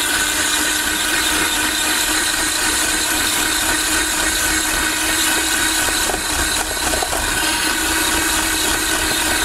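Electric hand mixer running steadily, its spinning beaters whipping egg white and powdered sugar with lemon juice into glaze in a bowl.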